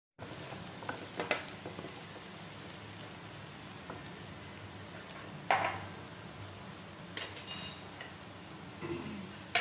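Sliced onions sizzling steadily as they fry in mustard oil in a nonstick pan, with a few short clicks and scrapes scattered through it.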